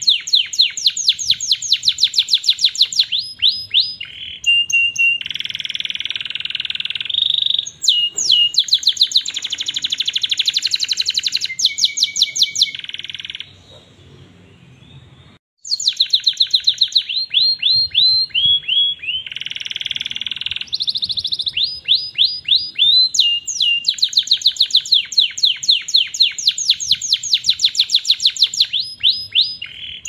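Orange canary singing a long, vigorous song of fast trills and buzzing rolls. The song breaks off for about two seconds midway, then resumes.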